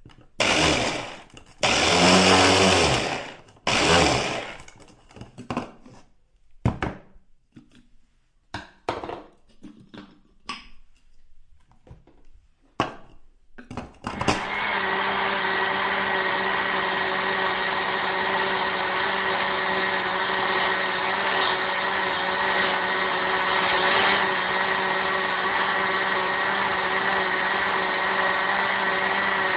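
Electric blender pulsed in a series of short bursts, the first few longer, then many brief irregular pulses. About fourteen seconds in it switches to running continuously at a steady speed with a constant motor whine.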